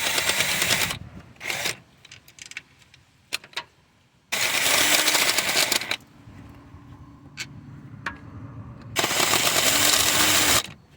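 A cordless power tool running in three bursts of one to two seconds each, spinning out bolts. Light metallic clicks and taps come between the bursts.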